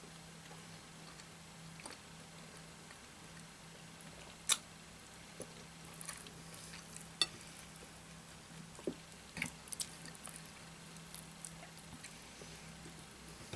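Eating chicken curry and rice by hand: sparse soft wet clicks and squishes, a few sharper ones, over a faint steady hum.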